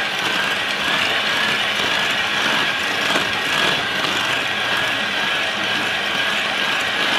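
Electric hand mixer running steadily, beating eggs with sugar and salt until the mixture turns pale.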